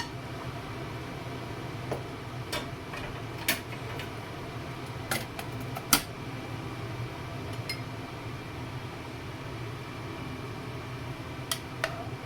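Scattered clinks and knocks of dishes and cutlery, about nine in all with the sharpest about halfway through, over the steady hum of a fan.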